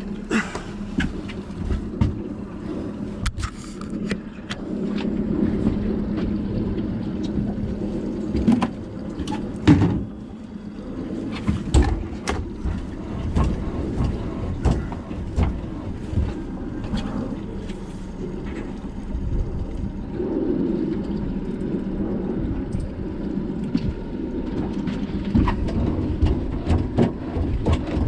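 Wind buffeting the microphone on an open boat, a steady rushing noise with scattered knocks and clicks from fishing gear being handled against the aluminum hull. A faint steady motor hum sits underneath, clearest early on.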